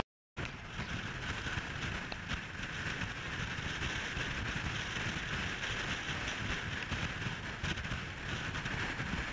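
Steady wind and road noise from a car driving along a road, heard through a camera mounted outside on the bonnet, with a low rumble and a hiss. It starts suddenly just after a brief silence.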